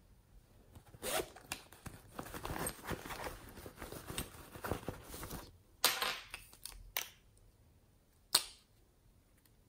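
Hands rummaging in a plush fabric pencil case: close rustling and crackling with small clicks of plastic items for several seconds. Then a few sharp clicks, and one loud sharp click near the end as plastic tubes are handled.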